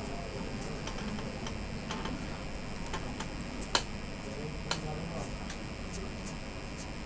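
Light ticks and clicks of hands handling the small plastic parts of a Boya BY-M1 lavalier microphone, with two sharper clicks a little under a second apart near the middle.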